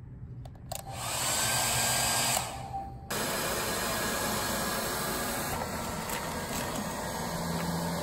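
Handheld hair dryer switched on about a second in, blowing with a steady hiss. It breaks off briefly and comes back suddenly near three seconds, running steadily as the air blast for a charcoal foundry, fed through an old vacuum hose.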